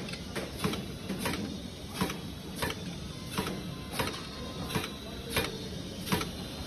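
Pneumatic lifting piston depositor cycling as it doses batter into cake tins: a sharp click or knock about every two-thirds of a second over a steady machinery hum.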